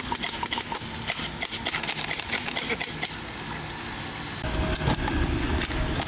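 Rapid, irregular sharp clicks and snaps from the model warships' BB cannons firing and shots striking wooden hulls. About four and a half seconds in, they give way to a louder, steady low rumble.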